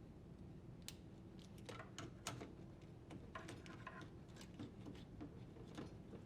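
Faint, irregular small clicks and taps of hard plastic being handled: a replacement dishwasher door latch and its wire connector being plugged in and seated in the latch slot.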